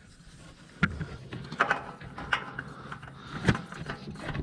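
A few scattered clicks and knocks of hands and metal parts as a new spin-on oil filter is fitted to a Polaris RZR 1000 XP engine.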